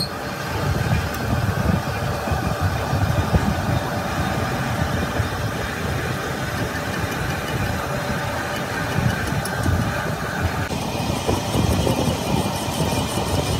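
Metal lathe running, turning the end of a flanged steel axle shaft with a cutting tool: a steady machine drone with a low rumble. The higher part of the sound drops away about eleven seconds in.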